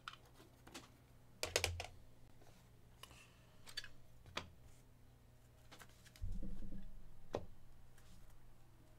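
Trading cards and their plastic packaging being handled by hand, giving light scattered clicks and rustles with a quick run of clicks near two seconds in. About six seconds in comes a louder dull thump that fades over about a second.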